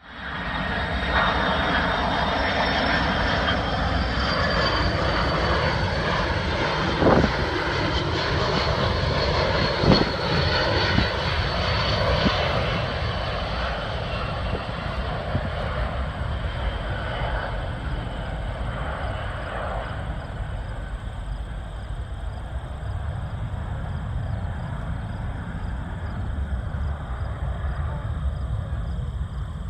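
DC-10-30 air tanker's three turbofan jet engines passing low overhead: a steady jet noise with a high whine that slowly drops in pitch, loud for the first dozen seconds, then gradually fading as the aircraft moves away. Two brief knocks come about seven and ten seconds in.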